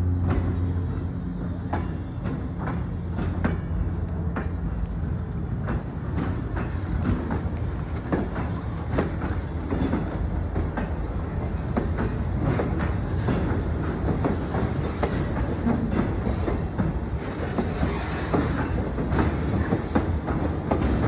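Railroad cars rolling past close by: an irregular run of wheel clacks over rail joints above a steady low rumble, with a steady low hum fading out in the first couple of seconds and a brief hiss near the end.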